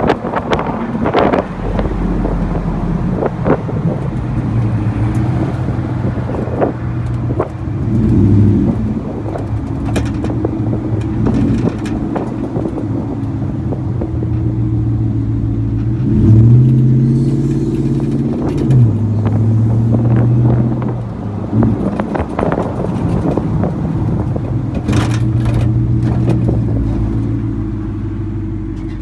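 Ram Hemi V8 running through a Magnaflow 12288 muffler and 5-inch exhaust tips while the truck is driven, a steady low exhaust note whose pitch steps up and down a few times. Wind buffets the microphone throughout.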